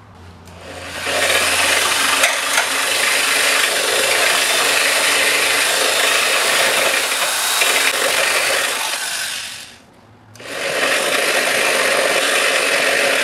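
Handheld power grinder grinding excess weld off the steel frame rail, a steady grinding noise in two long runs with a short break about ten seconds in.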